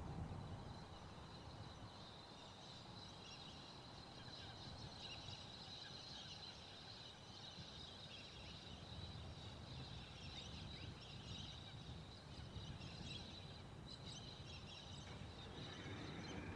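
Faint outdoor ambience: birds chirping and calling in the distance over a steady high-pitched tone.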